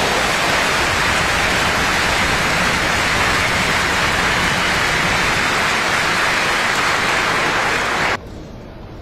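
Arena crowd applauding after a point, loud and steady, cutting off suddenly about eight seconds in.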